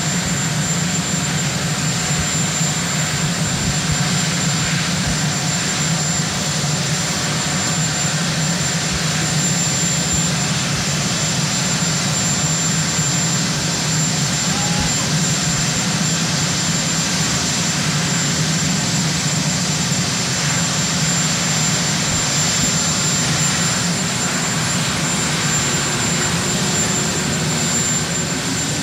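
Sikorsky VH-3D Sea King helicopter (Marine One) running on the ground, its twin turboshaft engines giving a loud, steady whine with a high, unchanging tone over a deep rotor hum.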